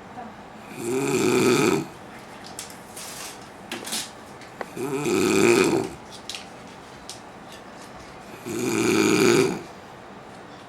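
A man snoring heavily in deep sleep: three loud snores about four seconds apart, each lasting about a second.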